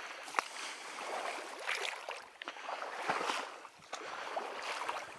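Someone wading through shallow marsh water: uneven sloshing and splashing that swells and fades, with a few small clicks.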